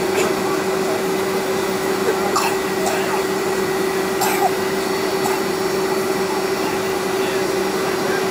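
Boeing 757 jet engines at taxi idle heard from inside the cabin: a steady rushing hum with a constant low whine.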